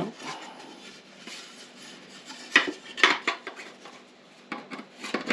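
Hard 3D-printed plastic model parts being handled: a few sharp clicks and clatters with some rubbing, loudest about two and a half to three seconds in and again near the end.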